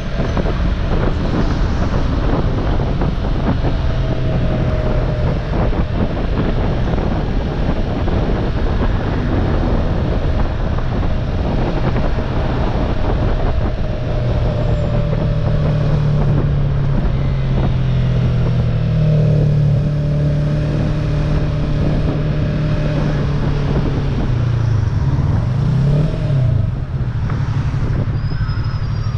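Sport motorcycle engine running at low speed under light throttle, with steady wind rush on the microphone. The engine note rises and strengthens about halfway through, then briefly drops and climbs again near the end as the throttle is rolled off and back on.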